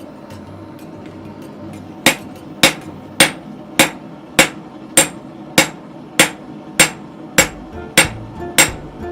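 A forging hammer beats a hot steel railroad spike on an anvil as it is drawn into an axe head. After about two seconds of only faint taps, a steady rhythm of sharp, ringing blows begins, a little under two a second.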